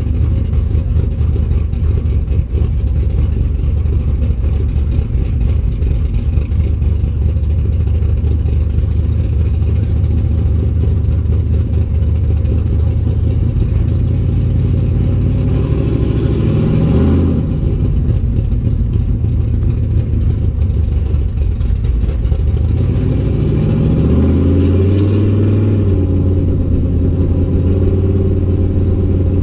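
Chevrolet C10 pickup's engine running under the hood at low speed with a steady low drone. It is revved up about halfway through, dropping back at once, then revved again near the end, where it holds at a higher pitch.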